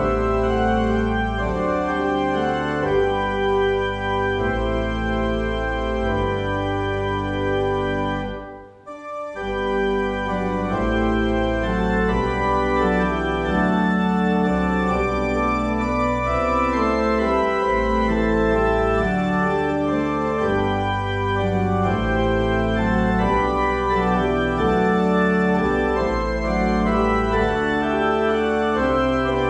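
Church organ playing a hymn tune in sustained chords over deep bass notes. It breaks off briefly about nine seconds in, between verses, then plays on.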